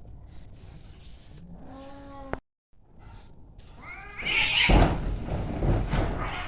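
Cats fighting: a short yowl about two seconds in, then a brief cut to silence. A rising yowl follows, breaking into loud, harsh fighting screeches over the last two seconds.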